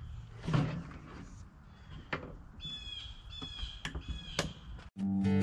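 A bird calls about four times in quick succession near the middle, over a few light knocks of a metal drip pan being lifted out of an electric smoker. Acoustic guitar music comes in loudly just before the end.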